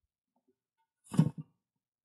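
Tire on its alloy wheel set down flat onto the grass, about a second in: a short thud with a lighter second knock right after.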